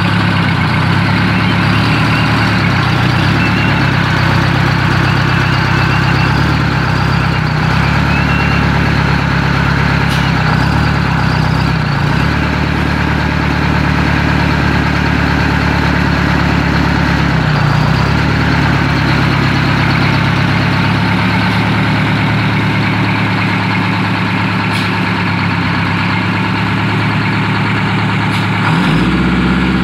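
Diesel engine of a 1973 Sultana coach running at a steady low idle while the bus creeps in reverse. The engine note shifts a little now and then, and the engine revs up briefly near the end.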